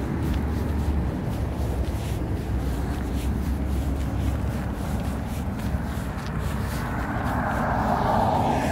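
Street ambience heard while walking: a steady low rumble of traffic. A vehicle grows louder as it passes near the end.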